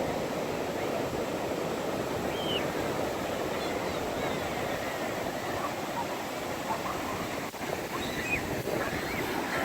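Ocean surf washing onto the beach: a steady rushing of breaking waves.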